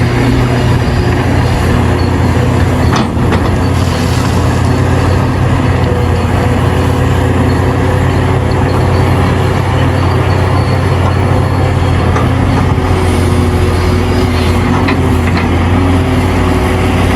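Hitachi Zaxis 670LC mining excavator's diesel engine and hydraulics running steadily under load, a deep hum with a few steady tones above it. A single sharp knock about three seconds in.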